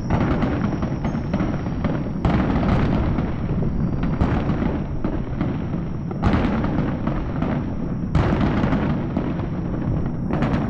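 Aerial fireworks going off in a dense barrage: continuous crackling and booming, with a fresh loud burst about every two seconds.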